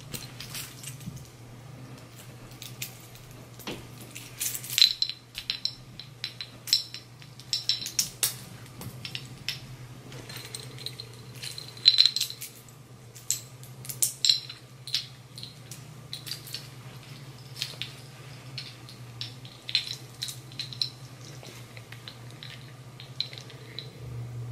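Metal link watch bracelets clinking and clasps clicking as three wristwatches are put on one wrist: a long run of irregular sharp clicks and jingles, busiest in the first half.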